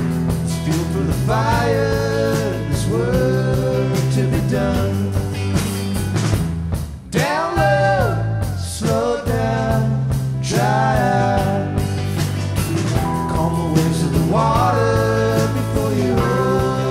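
Live rock band playing a song: a lead vocalist sings in phrases a few seconds apart over electric guitars, keyboard and a drum kit.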